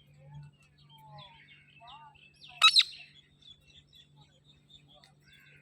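Parrot chirping, with two loud sharp squawks in quick succession about halfway through. A low steady hum runs underneath.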